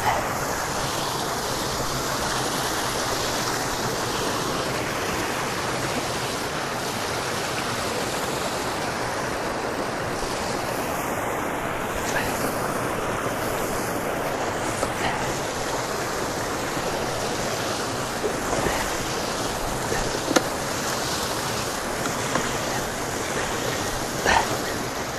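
Water gushing from a drainage outfall pipe into a canal: a steady, unbroken rushing noise. A few brief knocks sound faintly over it in the second half.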